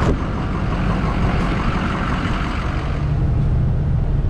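Truck engine idling with a steady low rumble, a sharp knock right at the start; about three seconds in it settles into a steadier low hum.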